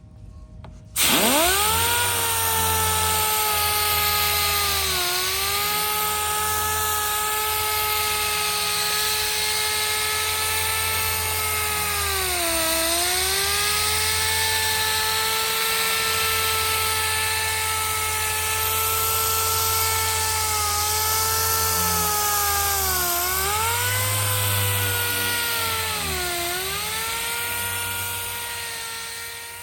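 Handheld electric power tool spinning up about a second in, then running with a steady high whine that dips in pitch four times as it is pressed into the work.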